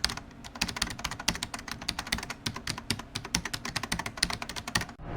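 Typing on a keyboard: quick, irregular key clicks, several a second.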